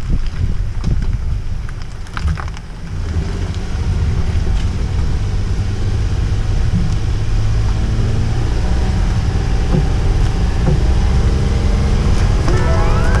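Steady low rumble of road and engine noise inside the cabin of a Honda N-VAN while driving.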